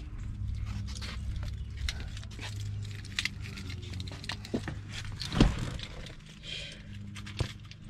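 Car keys jangling and clicking as they are handled at the open driver's door, with one loud thump about five and a half seconds in. A steady low hum runs underneath.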